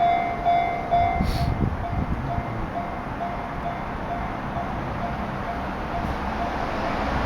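Japanese railway level-crossing warning bell ringing at about two dings a second, over the low rumble of a train passing in the first couple of seconds. The bell then rings on more faintly, and a rush of road traffic noise rises near the end.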